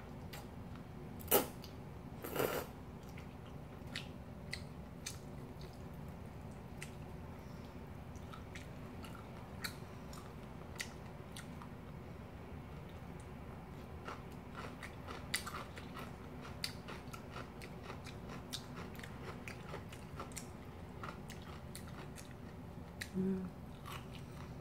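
A person eating cold noodles in kimchi broth close to the microphone. There is a loud short slurp or smack about a second in and another soon after, then chewing with scattered small wet clicks, over a steady low hum.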